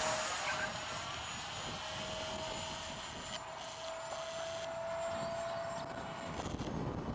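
50 mm electric ducted fan of an RC jet model whining steadily in flight at one pitch, stopping about six seconds in.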